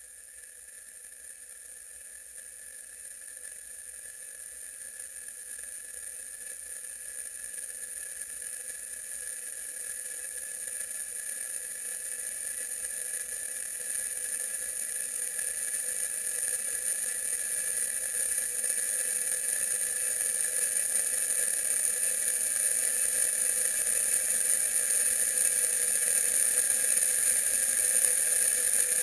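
A steady, machine-like whirring drone with a strong high hiss, swelling evenly louder.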